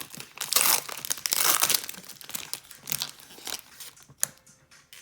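Baseball card pack wrapper crinkling and tearing as it is pulled open, loudest in the first two seconds and then dying down, with one sharp click about four seconds in.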